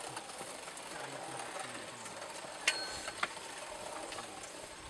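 Cast-iron hand-cranked meat grinder being turned, its auger grinding raw ram meat out through the plate with a steady mechanical grinding. Two sharp metallic clinks come a little past halfway, half a second apart.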